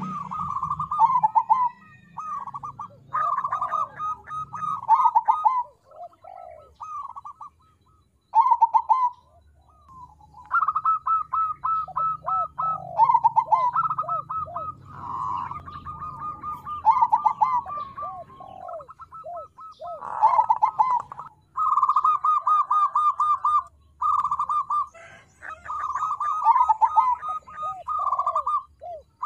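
Crossbred zebra dove (perkutut) cooing: repeated phrases of rapid staccato notes, broken by a few short pauses.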